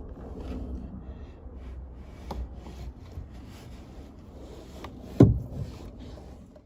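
Low rumble inside a two-door Chevrolet Tahoe's cabin on the move, with a few faint clicks and one sharp knock a little past five seconds in.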